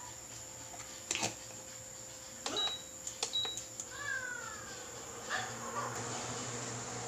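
Two short beeps from an electric cooktop's control panel among a few clicks and knocks, over a steady high whine. Near the end the teriyaki sauce in the stainless pot comes to a boil, with a rising bubbling hiss.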